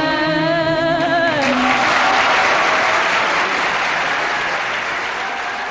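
An Arabic song ends on a held, wavering final note, and about a second and a half in the audience breaks into applause, which slowly fades.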